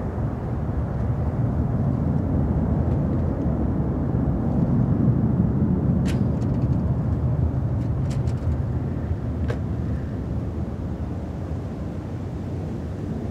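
Low rumble of a Boeing 747-400's four General Electric CF6-80C2 turbofan engines at climb power as the jet heads away after takeoff. It swells about halfway through and eases off toward the end, with a few faint clicks in between.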